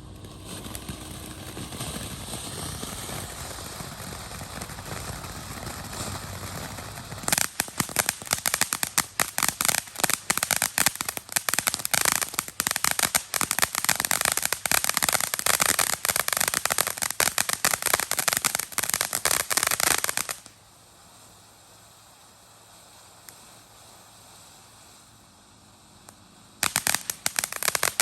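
Black Cat 'Little Big Show' firework fountain spraying with a steady hiss. About seven seconds in, dense rapid crackling sets in and stops abruptly around twenty seconds in, leaving a fainter hiss. Crackling starts again near the end.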